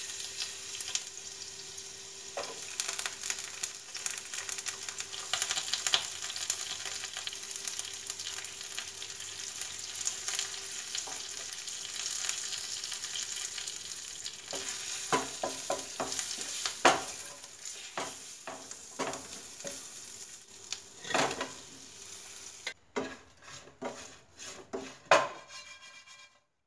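Chopped garlic, chilli and spices sizzling in a little hot oil in a nonstick pan, with a spatula stirring through them. From about halfway on, the spatula knocks and scrapes against the pan more often as the fried cauliflower pieces are tossed.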